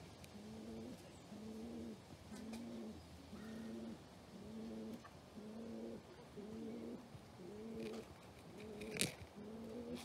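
Pigeon cooing over and over, a low call repeated about once a second. A single sharp knock near the end.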